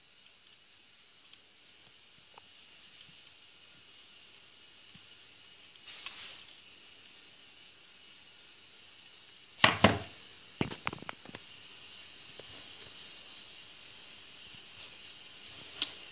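Handling noise from a plastic cordless-drill battery pack and its wires: a brief rustle, then a loud cluster of knocks about ten seconds in and a few lighter clicks after it, as the pack is moved and set down. A steady high hiss lies underneath.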